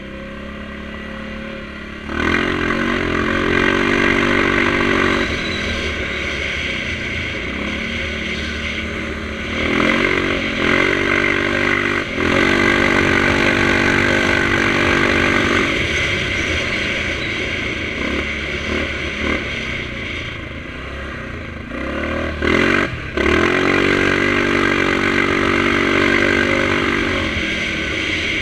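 Yamaha Grizzly 700 ATV's single-cylinder four-stroke engine running through an HMF aftermarket exhaust, heard from on board while riding. The throttle opens in several surges of a few seconds each and eases off between them, with two short blips just before the last surge.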